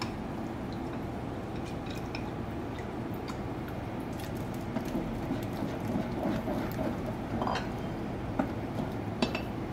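Chopsticks and a spoon stirring and skimming simmering chè in a stainless steel pot, with a few light clinks against the pot, the clearest about seven and a half seconds in and near the end, over a steady low hum.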